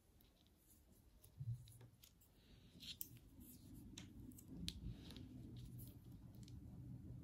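Near silence with a few faint, scattered clicks and taps from wooden circular knitting needles as stitches are knitted. A low, steady hum sits underneath.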